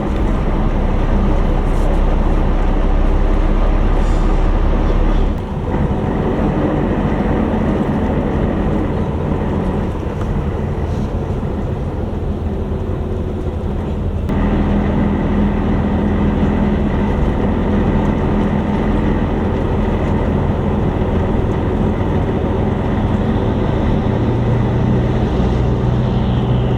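Inside a passenger coach on the move: a steady engine drone and road noise. The engine note changes about five seconds in and again about fourteen seconds in.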